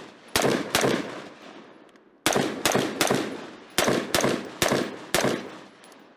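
AR-15-style carbine fired rapidly: two shots near the start, then after a short pause a string of seven more at about two shots a second, each shot trailing off in a decaying echo.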